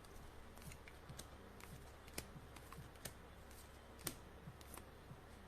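Faint, irregular light clicks and taps, about one every half second, with two slightly sharper ones partway through, over near silence.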